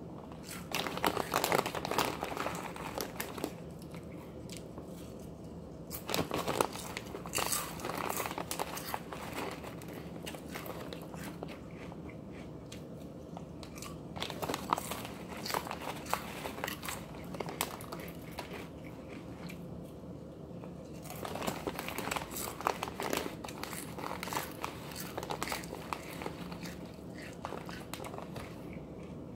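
Crunchy chips being bitten and chewed close to the mouth, with the plastic chip bag crinkling as he reaches in. The crunching comes in several bouts of a few seconds each, with quieter chewing pauses between them.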